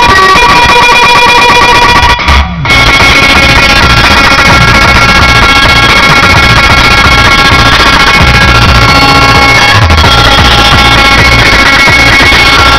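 Music with drums and a steady beat played very loud through a car-audio 'trio' system: horn drivers, tweeters and two Eros Target Bass subwoofers. The sound briefly cuts out about two seconds in.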